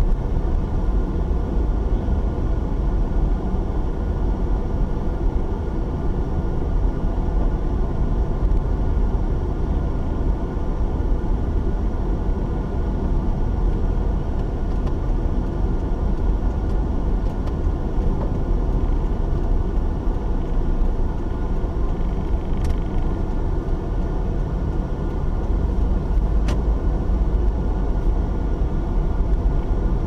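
Steady low rumble of a car driving on a paved road, heard from inside the cabin.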